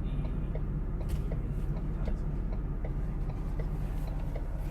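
Car engine idling, heard from inside the cabin, with the indicator flasher ticking steadily about two to three times a second while the car is pulled over and stopped.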